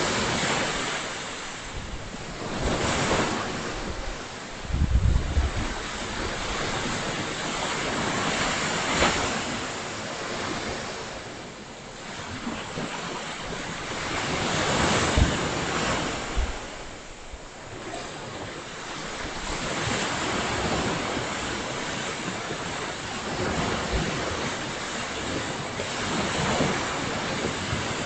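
Ocean surf breaking and washing up the beach, the noise swelling and fading every few seconds. Wind buffets the microphone in short low rumbles a few times.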